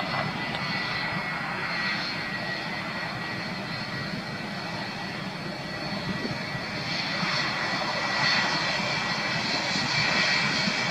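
Jet engines of a UPS Boeing 757 freighter whining steadily at low taxi power as it moves slowly past, growing louder about two-thirds of the way in as it comes closer.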